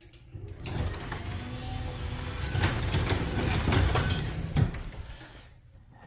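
Garage door opener started from a wall push button: the motor runs and the sectional door rattles along its tracks for about five seconds, with a few sharp clicks, fading out near the end.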